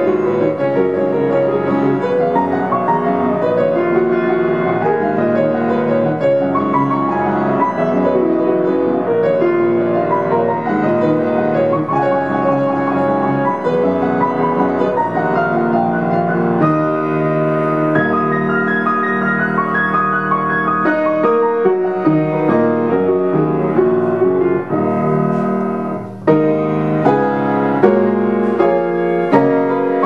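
Solo upright piano playing a dense, continuous stream of notes. Near the end it breaks off for a moment and comes back with loud, separately struck chords.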